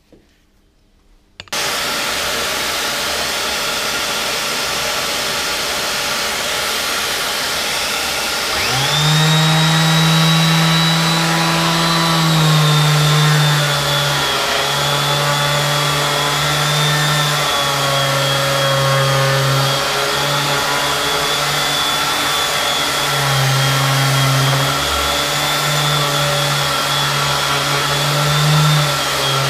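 A vacuum cleaner's steady rushing noise starts about a second and a half in. About nine seconds in, the Mac Allister MSDLS160 160 W electric detail sander joins with a motor hum and a high whine, its pitch wavering as it is pressed against and sands plaster, with the vacuum hose drawing off the dust.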